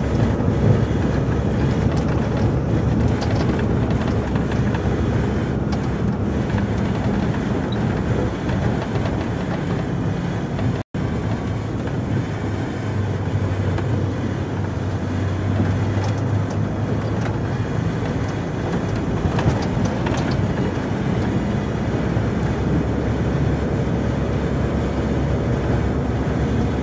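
Inside the cab of a Volvo FH 440 plow truck on the move: a steady straight-six diesel engine drone under road noise. The sound cuts out for an instant partway through, and after that the engine note sits lower.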